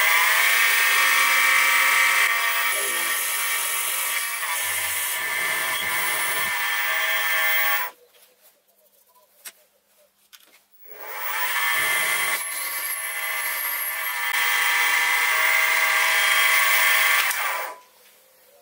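Mini milling machine's spindle motor running steadily with a 4.2 mm drill bit cutting a tapping hole for a 5 mm thread in a lathe carriage. It runs in two spells, each cut off suddenly, one about eight seconds in and one near the end.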